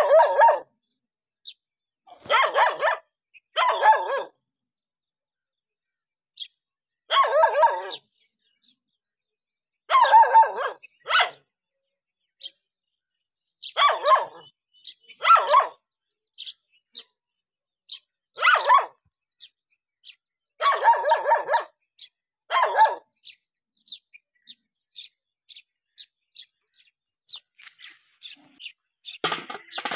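A village dog barking in short bouts of a bark or two, about every two to four seconds, with silent gaps between: an alarm bark at a stranger.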